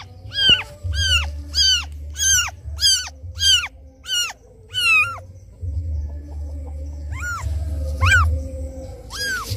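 Very young kitten mewing in a quick series of short, high, falling cries, about two a second, pausing near the middle and then crying again. It is a kitten's distress call for its absent mother. A low rumble runs underneath.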